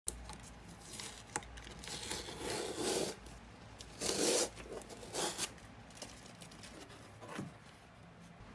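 Close handling noise: rustling and tearing swishes, the loudest about three and four seconds in, with a sharp click just after one second.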